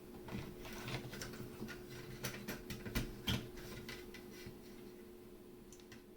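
Faint, irregular small clicks and taps, typical of oscilloscope probes being placed on chip pins and handled on a circuit board, over a steady faint hum.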